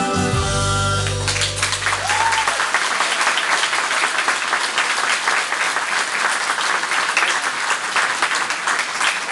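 A sung pop song's last chord rings out and stops about a second in, its bass dying away over the next two seconds; from then on an audience claps steadily.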